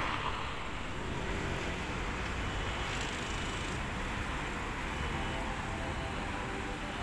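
Street traffic noise: cars running past, a steady low rumble with no single event standing out.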